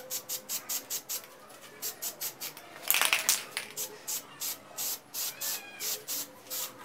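Aerosol can of matte black spray paint being shaken, its mixing ball rattling in a steady rhythm of about four strokes a second, with one louder burst about three seconds in.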